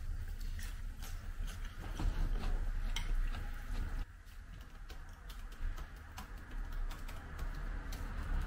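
Typing on a laptop keyboard: a scatter of light, irregular key clicks over a low steady hum.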